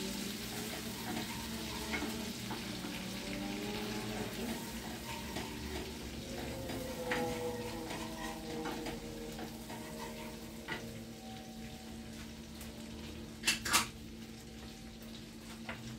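Chopped onion and garlic sizzling gently in melted butter in a sauté pan on low heat, stirred with a wooden spoon scraping the pan bottom. Two sharp clacks of kitchenware near the end.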